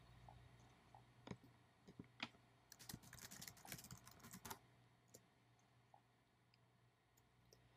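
Faint typing on a computer keyboard: a few separate keystrokes, then a quick run of keys for about two seconds starting a bit under three seconds in, then a couple more isolated taps.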